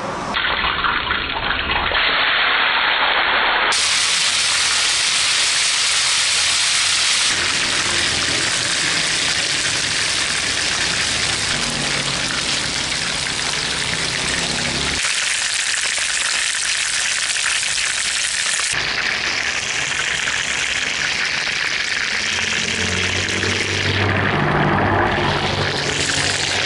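Seasoned, pre-boiled chicken pieces frying in hot oil in a pan, giving a loud, steady sizzle and crackle.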